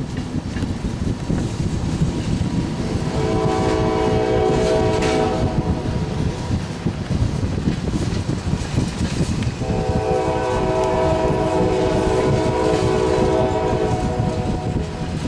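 Norfolk Southern freight train's diesel locomotives rumbling by, with the lead locomotive's multi-chime air horn sounding twice: a blast of about two seconds, then a longer one of about five seconds.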